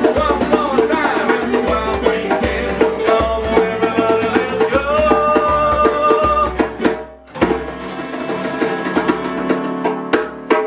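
Small band playing a rock and roll song in an unplugged style, with acoustic guitar over a drum beat. About two thirds of the way through the beat breaks off briefly, then a chord rings out and a final hit closes the song.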